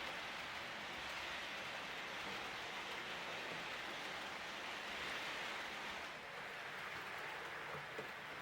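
H0-scale model train rolling along the layout's track: a steady rushing hiss with no change in pitch.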